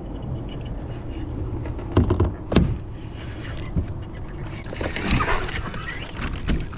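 Knocks on a kayak's hull, three sharp ones in the first four seconds, then water splashing and rushing for about two seconds.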